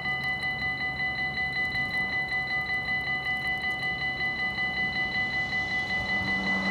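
Dutch level-crossing warning bells ringing in a fast, even stroke, a bright metallic ring sounding as the crossing is closed for an approaching train. Near the end a low rumble of the approaching train begins under the bells.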